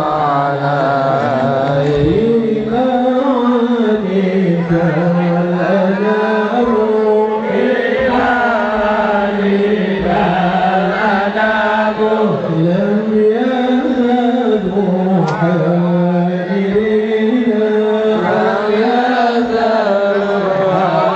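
Chanted Islamic sholawat: a slow devotional vocal melody with long, drawn-out notes that glide up and down without pause.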